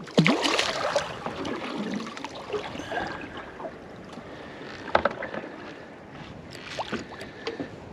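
Water sloshing against a small boat's hull, with a few sharp knocks.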